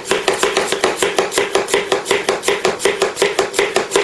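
Hand vacuum pump on the lid of a marinating container being pumped in fast, even strokes, about four a second, drawing a vacuum over the meat and marinade.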